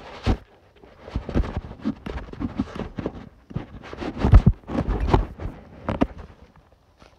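Irregular crunching and rustling in dry leaves and sticks, loudest about four seconds in.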